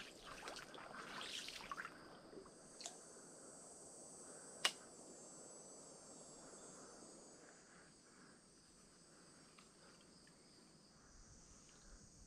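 Faint, steady high-pitched insect chorus, with light rustling in the first couple of seconds and a single sharp click about four and a half seconds in.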